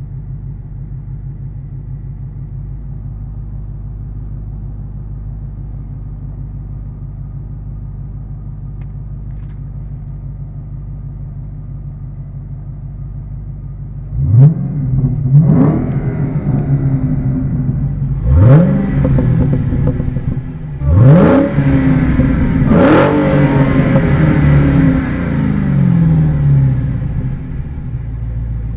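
2015 Dodge Challenger SRT Hellcat's supercharged 6.2-litre V8 idling with a steady low burble. About halfway in it begins revving hard several times, each rev a quick rising sweep that falls away before the next.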